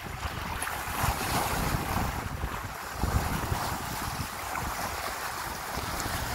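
Wind buffeting the microphone over a steady rush of water along the hull of a Hunter 356 sailboat under way.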